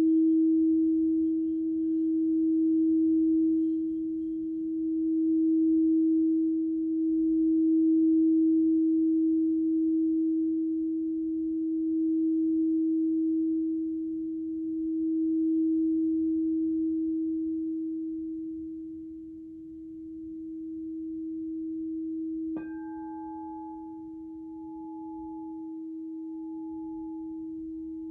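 Alchemical crystal singing bowl sounding one sustained, nearly pure tone that swells and fades slowly in waves. About 22 seconds in a sharp tap strikes it, adding a higher, wavering ringing overtone over the held note.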